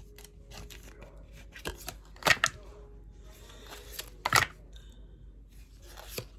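Tarot cards being handled and laid down, a few short sharp card clicks, the loudest about two and four seconds in.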